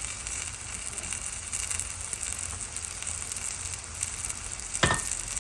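Chicken, potatoes, peas and carrots sizzling steadily in a skillet as they fry together, with one sharp clink near the end.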